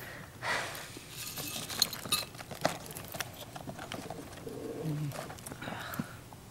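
Quiet kitchen-prep handling sounds: a spoon clinking and scraping in a bowl and packaging rustling, with a few sharp clicks and taps.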